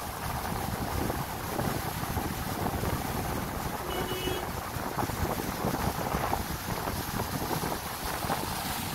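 Small waves breaking and washing over a pebble shore, with wind buffeting the microphone in a steady rumble.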